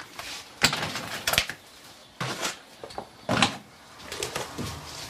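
Groceries being put away in a fridge: two sharp clacks in the first second and a half, then short rustles and clunks of packages and the fridge door.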